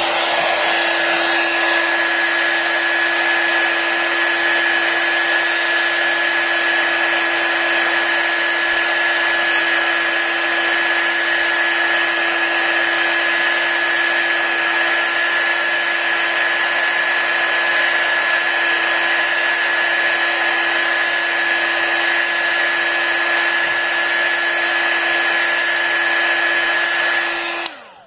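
Electric heat gun blowing hot air steadily, with a constant motor whine over the rush of air, heating the iPad glass to soften its adhesive. It is switched on at the start and cuts off shortly before the end.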